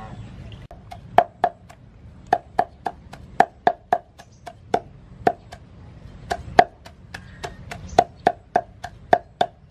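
Knife chopping soaked dried sweet pepper on a cutting board: quick, sharp knocks with a short hollow ring, about three a second, starting about a second in.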